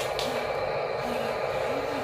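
Small electric motors and plastic gearboxes of radio-controlled construction models whirring steadily, with short rises and falls in pitch and a sharp click just after the start.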